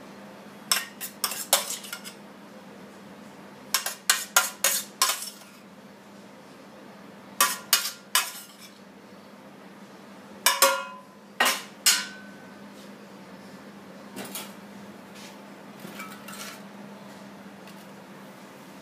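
A metal spoon clinking and scraping against a metal serving platter and a porcelain plate as food is spooned out. The clinks come in groups of three to five every few seconds and grow fainter near the end, over a steady low hum.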